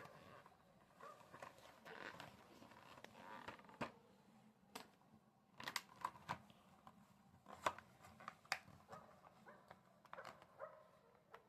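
Quiet close-up handling sounds: soft rustling and scraping for the first few seconds, then a scatter of sharp taps and clicks.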